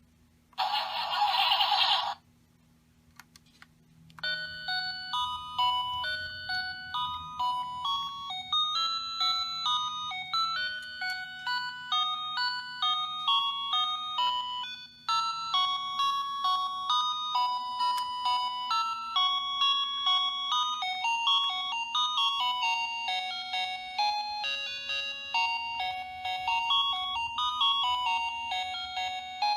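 Toy car-alarm remote playing one of its tunes as a tinny electronic melody of beeping single notes through its small speaker, starting about four seconds in. Just before it, a short, loud burst of electronic noise lasts about a second and a half.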